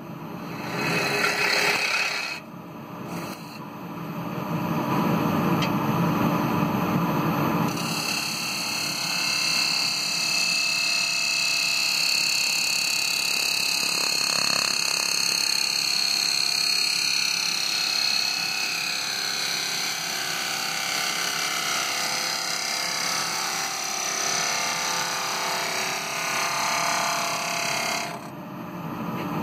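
A gouge cutting the inside of a spinning kiln-dried ash bowl on a wood lathe, a steady scraping hiss as shavings come off. The cut lets up briefly a couple of seconds in and again near the end, and a high whine rides over it through the middle part.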